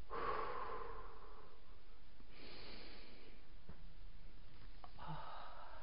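A woman breathing audibly close to a clip-on microphone while holding a balance pose: a long breath at the start, a higher hissing breath about two and a half seconds in, and another breath near the end.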